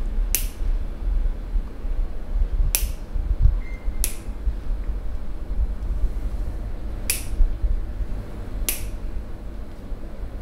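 Five sharp snaps, irregularly spaced one to four seconds apart, over a steady low rumble.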